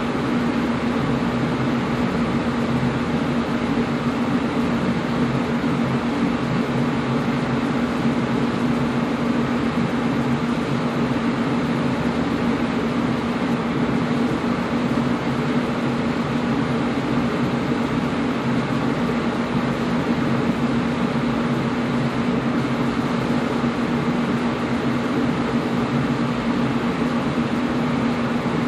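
Air conditioner running steadily: an even rush of air over a constant low hum, with no change in level.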